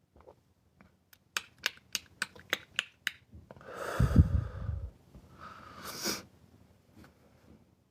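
A quick run of about eight sharp clicks, about four a second, then a loud breathy rush with a deep rumble, and a shorter hissing breath about six seconds in.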